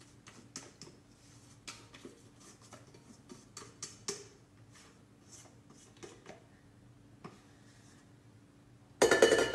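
Spatula scraping whisked egg whites out of a stainless-steel mixer bowl into a bowl of batter: soft scattered scrapes and light clicks, with a much louder knock near the end.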